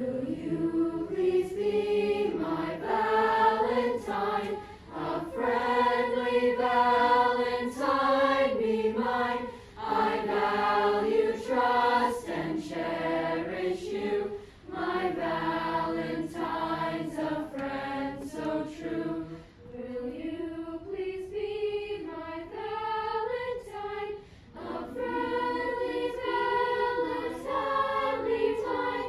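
Junior high school chorus of boys and girls singing a round, with short breaks between phrases.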